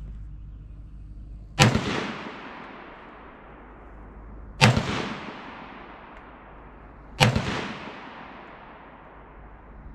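Three single shots from a Norinco SKS Sporter semi-automatic rifle in 7.62x39, spaced about three and then two and a half seconds apart. Each is a sharp crack followed by a long echoing tail.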